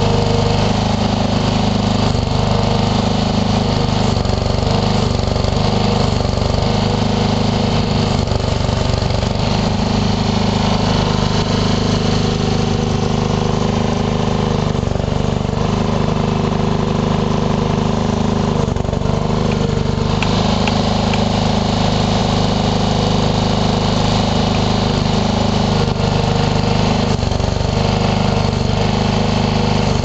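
Strongland garden tractor's engine running at a steady speed, driving the hydraulics of its mini backhoe attachment as it digs.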